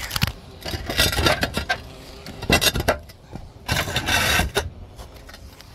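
Handling noise from a phone whose microphone is being rubbed by a hand or clothing while it is carried: irregular scraping and rubbing in several bursts, the longest about four seconds in.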